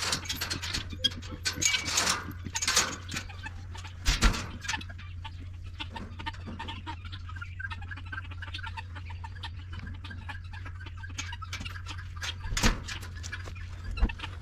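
Chickens clucking, with scattered knocks and clatter and a few louder bursts, over a steady low hum.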